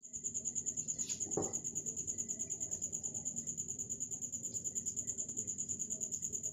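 A cricket chirping steadily, a high-pitched call pulsing evenly about seven times a second. A short low sound falls in pitch a little over a second in.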